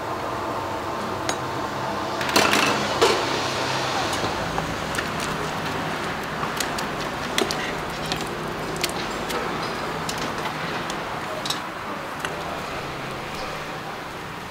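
Kitchen clatter: metal utensils, bowls and stainless pots clinking and knocking while noodles are cooked in a wire strainer basket. The knocks are loudest about two to three seconds in, over a steady hiss.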